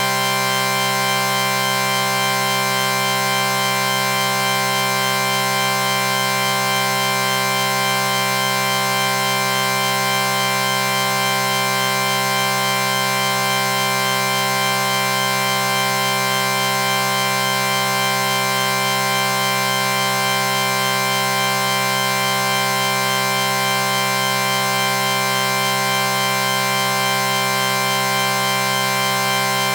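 A chord sound effect: several pitched tones held together in one steady, unchanging drone.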